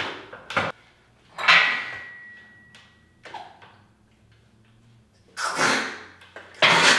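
A loaded barbell being unracked and bench pressed on a home weight bench: a sharp knock, then a few rushing, noisy bursts about a second long with quiet gaps between them.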